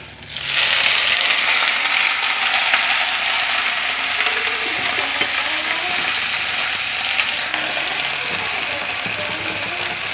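Sweet potato tops go into a saucepan of hot oil and frying garlic, and a loud sizzle starts suddenly about half a second in, then carries on steadily, easing only slightly.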